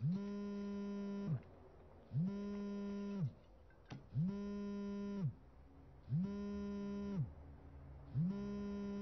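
Samsung flip phone on vibrate buzzing against a table in repeated pulses, each a little over a second long about every two seconds, its pitch rising as the motor spins up and dropping as it stops: an incoming call.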